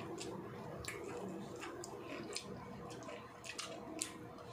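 Close-up wet mouth sounds of someone eating rice and vegetables by hand: chewing with lip smacks and small tongue clicks, about two or three a second.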